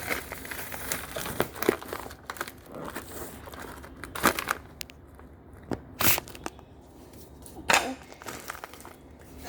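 Packaging crinkling and rustling as food items are handled, with several sharp knocks of things being picked up and set down.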